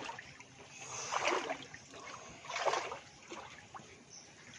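Floodwater splashing and sloshing as someone wades through it, in slow, regular strokes about one every second and a half.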